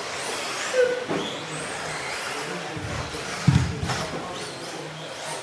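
2wd radio-controlled off-road buggies racing, their motors giving short rising and falling whines as they speed up and slow down. Low thuds come a few times, the loudest about three and a half seconds in.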